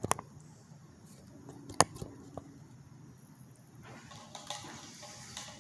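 Handling sounds as a lamp's cord is pulled along and fitted: a couple of light knocks, then one sharp click a little under two seconds in, with faint rustling between.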